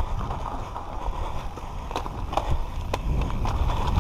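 Mountain bike descending a loose dirt and gravel trail: wind buffeting the camera microphone over the crunch of tyres on the dirt, with scattered clicks and rattles from the bike. The rumble grows louder near the end as the bike picks up speed.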